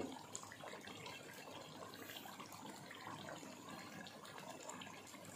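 Chicken karahi curry simmering faintly in the karahi: a low, steady, watery bubbling hiss.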